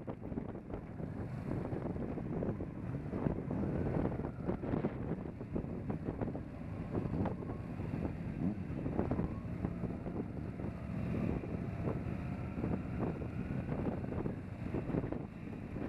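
Wind buffeting the microphone on a moving motorcycle, over the steady rumble of motorcycle engines riding in a group, with faint engine tones rising and falling.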